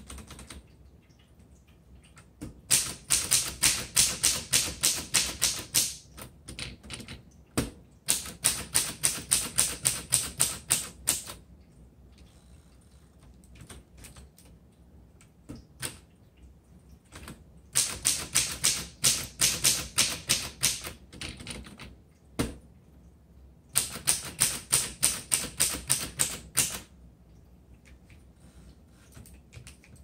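1930 Corona Sterling manual portable typewriter being typed on: four runs of quick keystrokes, about five strikes a second, each run lasting about three seconds, with a few single strikes between them.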